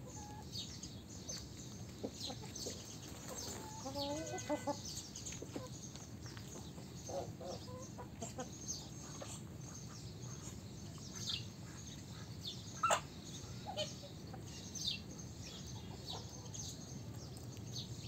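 Domestic hens clucking while foraging, with many short high chirps throughout. One sharp tick about thirteen seconds in is the loudest sound.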